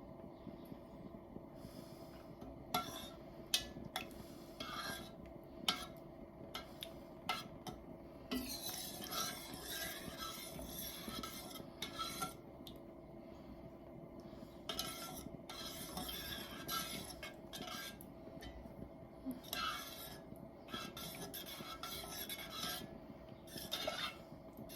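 A spoon stirring and scraping through a thickening chicken and vegetable mixture in a pan, with several sharp taps and clinks against the pan in the first half, over a faint steady hum.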